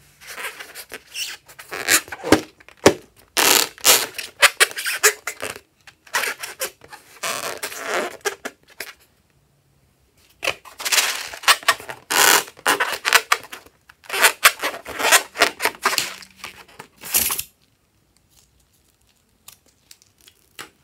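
Inflated rubber balloon handled and squeezed in the hands, with rubbery squeaks and rubbing in irregular spells that stop a few seconds before the end.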